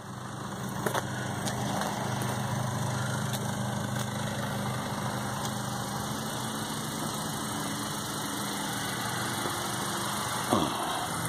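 2019 Honda CR-V LX's 2.4-litre four-cylinder engine idling steadily, a low even hum. A short falling sweep is heard near the end.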